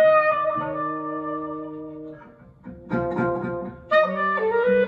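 Jazz with trumpet and clarinet played through a single-ended 300B valve amplifier and an 8-inch Philips full-range speaker from the 1940s. A held note fades out a little past two seconds in, and the band comes back in about a second later.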